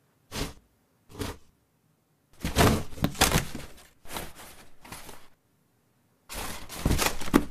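Cardboard box being scratched and torn open from inside by a cat: two short scratches, then a long rip of cardboard about two seconds in, softer rustling, and another burst of tearing near the end.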